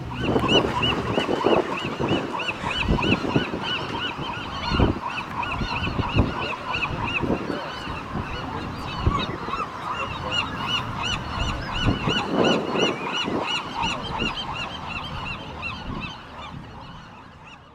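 Gulls calling in rapid series of short, repeated notes, about four a second, with a pause of a couple of seconds midway. Dull low bumps come through here and there.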